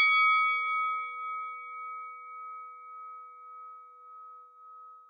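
A single struck bell-like chime ringing out and slowly dying away, its loudness wavering gently as it fades.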